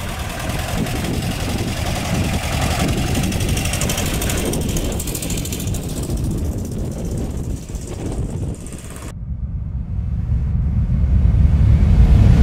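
1974 Volkswagen Weekender bus's air-cooled flat-four engine running as the bus drives off, with wind buffeting the microphone. About nine seconds in it cuts off abruptly, and a low swelling sound rises in loudness near the end.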